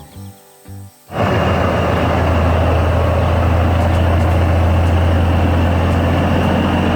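Heavy construction-machine engine sound effect starting suddenly about a second in and then running loud and steady with a deep low hum, after a few notes of music.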